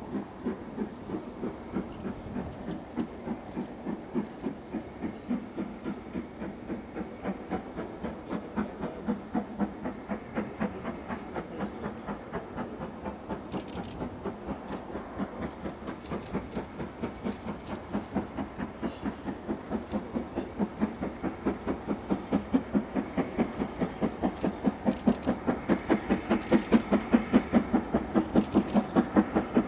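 LMS Stanier 8F 2-8-0 steam locomotive No. 48305 working steam on approach, its exhaust beating in a quick, even rhythm. The beats grow steadily louder as it draws nearer.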